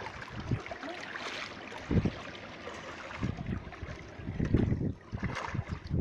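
Seawater sloshing and splashing around people wading in the shallows, with wind rumbling on the microphone in irregular gusts and a short thump about two seconds in.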